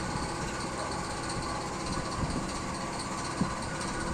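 Steady mechanical hum and hiss of running machinery, with one soft knock about three and a half seconds in.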